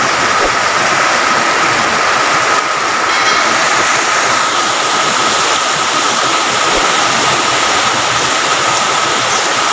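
Heavy rain pouring steadily, a dense even hiss, with a faint steady high tone running through it.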